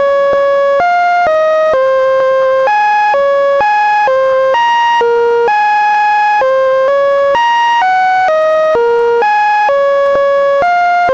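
Linux kernel data played back as a chain of synthesized electronic tones: steady beeping notes, about two a second and of uneven length, hopping up and down in pitch within about an octave, with no gaps between them.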